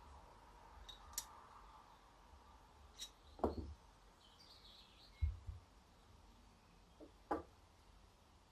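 Small carburettor parts being handled and set down on a workbench: a few scattered sharp clicks and dull knocks, heard during reassembly of an Amal Concentric carburettor.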